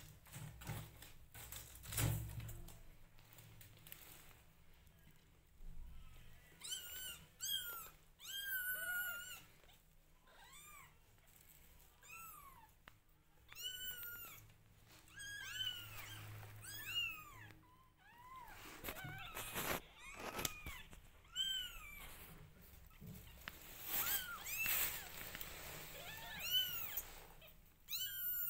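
A litter of newborn kittens mewing while their mother cat grooms them: many short, high-pitched calls that rise and fall, often overlapping, beginning about six seconds in. There are a couple of soft knocks in the first seconds.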